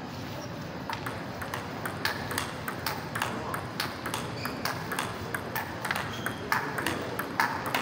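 Table tennis balls clicking off bats and tables from rallies at several tables at once: a quick, irregular string of sharp ticks.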